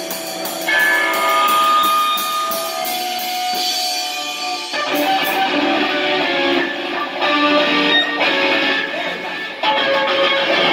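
Live electric guitar ringing out held chords, changing chord about every four seconds, with few drum strikes.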